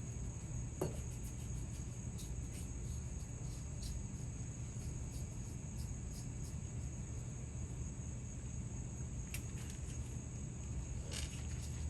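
Insects droning steadily at a high pitch over a low steady hum, with a few faint light clicks.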